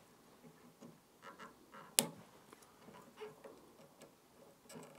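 Cutter snipping off the excess end of a classical guitar string at the headstock: one sharp click about two seconds in, with faint handling clicks and rustles of the string and tool around it.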